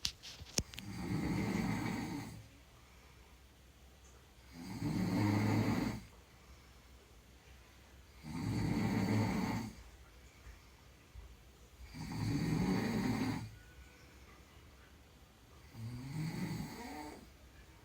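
A person snoring in sleep: five long snores, one about every four seconds, the last one softer. A sharp click sounds about half a second in.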